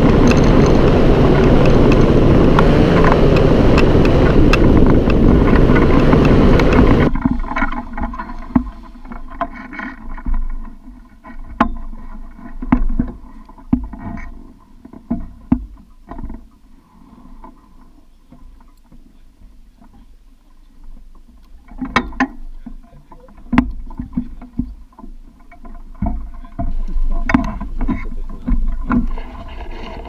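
Paramotor trike engine and propeller running loudly, cutting off suddenly about seven seconds in. After that there are only scattered knocks and clicks.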